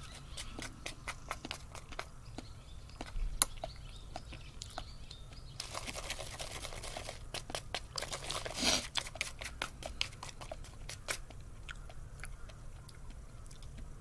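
Natto being eaten with chopsticks from a plastic tray: close-up chewing and mouth sounds with many short sharp clicks of the chopsticks against the tray. Two longer rushes of noise come about six and nine seconds in.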